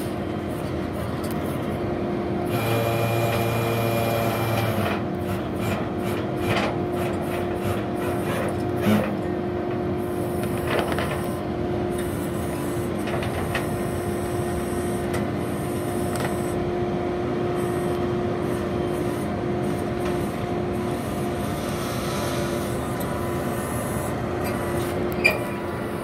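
Flatbed tow truck running steadily as its winch pulls a BMW convertible up the tilted bed, a constant hum with a held tone. A few sharp knocks and creaks come from the car and the wooden blocks under its wheels, one about nine seconds in and a sharper one near the end.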